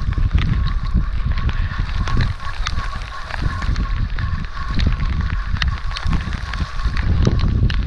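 Strong wind buffeting the microphone, with choppy sea water sloshing around the kayak and scattered light clicks and ticks.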